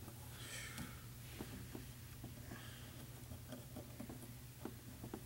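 Faint small plastic clicks and short rustles of the toy wrestling ring's ropes being fitted into a plastic corner post by hand, scattered irregularly over a low steady hum.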